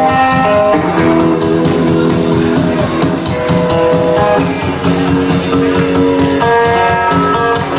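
Live psychobilly band playing an instrumental passage: electric guitar holding chords and single notes over upright double bass and drums keeping a steady beat, loud and slightly harsh as heard from the crowd.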